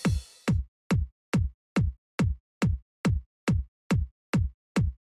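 Electronic music reduced to a lone kick drum, a little over two beats a second, each hit dropping quickly in pitch, with nothing sounding between the beats.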